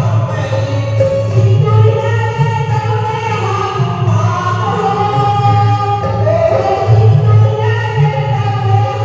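Voices singing a Hindi devotional bhajan to Hanuman together, over a steady musical accompaniment.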